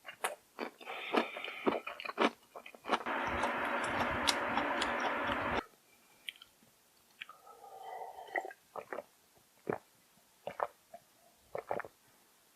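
Close-miked eating sounds: a person chewing and smacking, with many short wet clicks. About three seconds in there is a loud steady rushing sound lasting about two and a half seconds, which stops abruptly.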